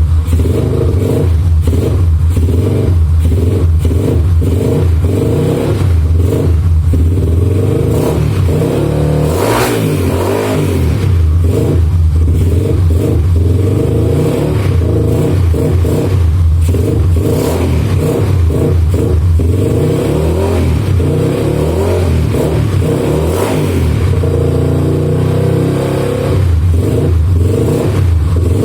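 Yamaha Scorpio single-cylinder four-stroke motorcycle engine running in a trail bike, its pitch rising and falling as the throttle is worked, with the sharpest rev about ten seconds in.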